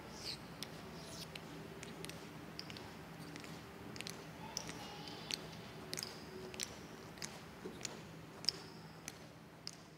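Faint footsteps of an honor guard color team marching off across a hard floor: sharp heel clicks about every half to two-thirds of a second, over a low steady room hum.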